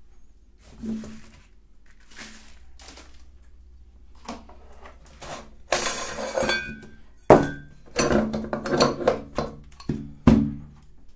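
Metal parts of a meat grinder being taken apart and handled. There is a rasping scrape about halfway through, then a string of sharp clanks and knocks with brief metallic ringing as the ring nut, cutting plate, blade and auger come off and are put down.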